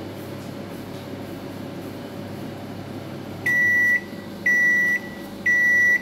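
Samsung microwave oven running with a steady hum, then sounding its end-of-cycle beep three times, about a second apart, starting about three and a half seconds in: the heating cycle has finished.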